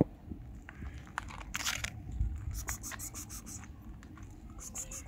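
A cat crunching dry cat food, heard as quick runs of crisp crunches, the longest about two and a half seconds in. A sharp click right at the start.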